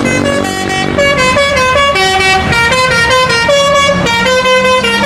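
Telolet basuri bus horn playing a melody: a run of short held notes that step up and down in pitch a few times a second.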